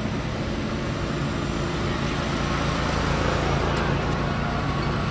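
Small engines of riding lawn mowers and a four-wheeler driving past in a slow procession: a steady mixed engine drone that grows a little louder in the second half as the four-wheeler comes closer.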